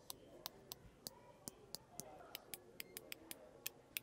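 A faint run of sharp ticking clicks, about three or four a second and unevenly spaced.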